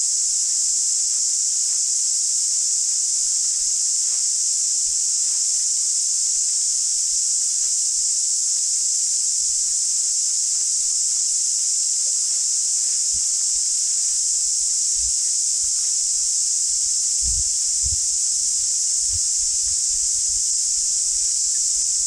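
Cicada chorus: a loud, steady, high-pitched drone. A few soft low thumps come in the second half.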